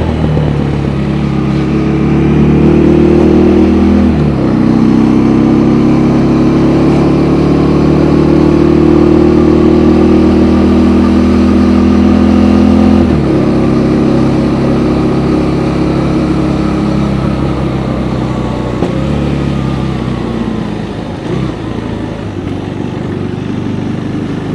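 Third-generation KTM Duke's single-cylinder engine through its stock exhaust, pulling under acceleration with upshifts about four and thirteen seconds in, then easing off and getting quieter near the end.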